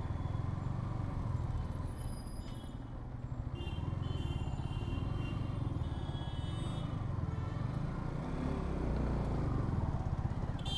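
Yamaha R15 V4's 155 cc single-cylinder engine running steadily while the bike is ridden through traffic, a steady low rumble heard from a rider-mounted mic. Faint high tones come and go in the middle.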